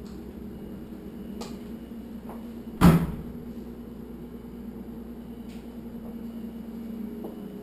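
A steady low hum, with one loud knock about three seconds in and a few faint clicks.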